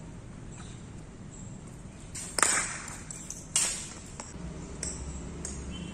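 Cricket ball and bat during batting practice: two sharp knocks about a second apart, each with a short ringing clink, followed by a few lighter ticks.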